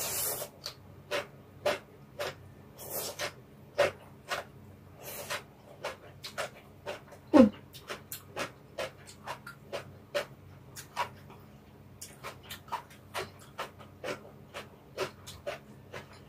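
Close-miked eating of stir-fried ramen noodles with bean sprouts: wet chewing clicks and smacks several times a second, with noodle slurps at the start and again around three and five seconds in. A short throat sound that falls in pitch, about seven seconds in, is the loudest moment.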